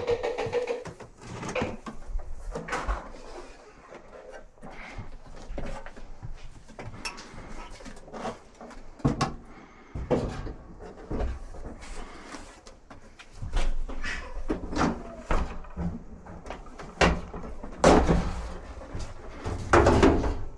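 Irregular knocks and clunks of dryer parts being handled and set in place during repair, with several louder bangs, the loudest near the end.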